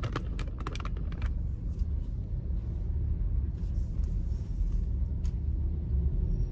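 Steady low rumble of a car moving slowly in stop-and-go traffic, its engine and road noise heard from inside the cabin. A few light clicks sound in the first second or so and once more near the end.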